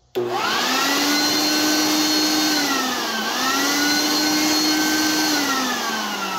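Earthwise corded electric blower switched on: its motor and fan start with a whine that climbs quickly to a steady speed, briefly drops in pitch about halfway through and picks back up, then winds down with a falling whine near the end. The blower runs normally after its teardown and reassembly.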